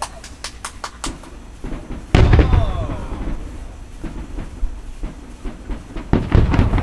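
Aerial firework shells bursting: a quick run of sharp pops in the first second, then a loud boom about two seconds in that rumbles on for a few seconds, and another cluster of booms near the end.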